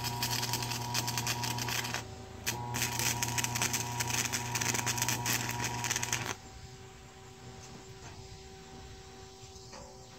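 Stick-welding arc crackling as 3/32 7018 rods tack a steel tab onto a hitch. One stretch of arc ends about 2 s in, there is a brief strike, then a second stretch runs until it cuts off about 6 s in. A quieter steady hum follows.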